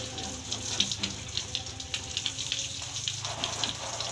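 Water spraying and spattering against a truck's body from a washing sprayer, over a steady low hum.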